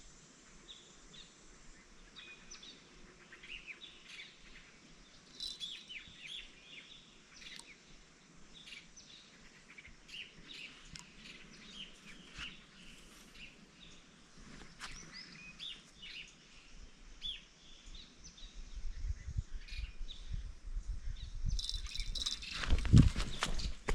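Small birds chirping with many short, separate calls. From about three-quarters of the way in a low rumble builds, and a loud rustling knock comes near the end.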